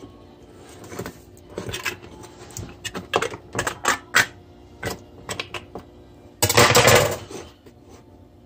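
Tin can of peas being stabbed and pried open with a serrated kitchen knife: a run of sharp metal taps and clicks as the blade strikes and punctures the lid, then a louder, longer burst of noise near the end.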